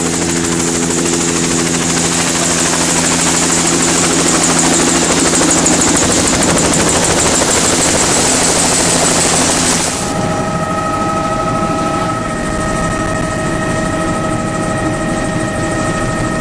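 Helicopter running close by with its rotor turning: a loud rush of noise with a high turbine whine. About ten seconds in, the sound changes abruptly to the steadier hum of the helicopter heard from inside the cabin in flight.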